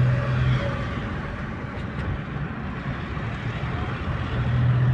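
Mahindra Bolero's diesel engine running and road noise heard from inside the cabin while driving, with a steady low hum that is strongest near the start and again near the end.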